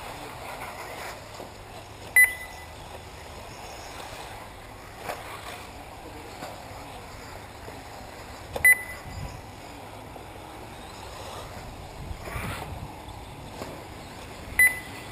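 Three short, loud electronic beeps, about six seconds apart, from an RC race lap-timing system marking cars crossing the line. Under them is steady outdoor background noise from the electric 1/8-scale buggies running on the track.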